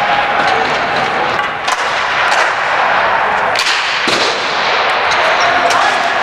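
Ball hockey play in an echoing rink: a few sharp cracks of sticks and ball hitting the boards over a steady noisy din.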